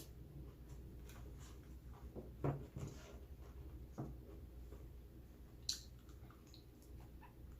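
Someone chewing food close to the microphone, with soft wet mouth clicks and smacks; a louder smack comes about two and a half seconds in and another near six seconds.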